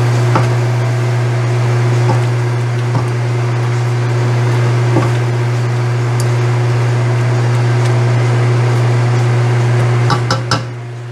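Chicken and onions sizzling in a stainless steel pan as they are stirred with a silicone spatula, with occasional clicks of the spatula against the pan and a quick cluster of taps near the end. A steady low hum sits under it all.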